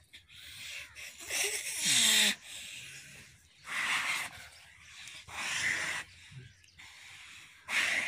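Dhanni bull giving four forceful, breathy snorts with its head down in the dirt, about one every one and a half to two seconds. The first and loudest carries a short falling grunt.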